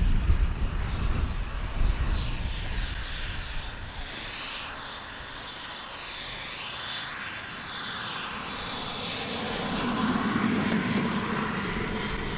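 The turbine jet engines of a Skymaster A-10 Warthog scale model jet whine as it comes in on a low approach. The high whine sweeps up and down in pitch as the jet passes, and lower rumbling builds near the end as it settles onto the grass strip. Wind buffets the microphone at first.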